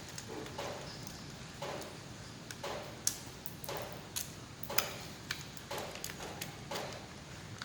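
Irregular light clicks and taps of hard plastic and small metal parts being handled, the sound of a cordless drill/screwdriver's plastic housing and parts being taken apart by hand.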